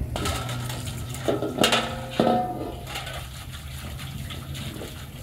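Metal washbasin knocking and scraping on a wet concrete floor, with a few loud clanks about a second and a half to two and a half seconds in that ring briefly, and water sloshing in the basin.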